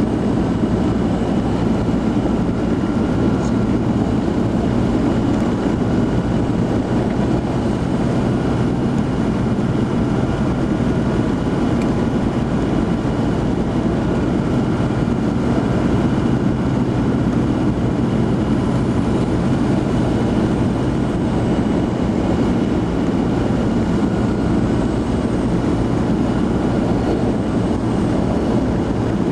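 Vehicle engine and road noise heard from inside the cabin while driving on a snow-covered road: a steady low drone that holds even throughout.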